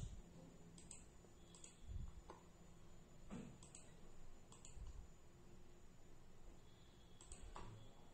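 Faint computer mouse clicks, several of them in quick pairs, spread over a near-silent room tone.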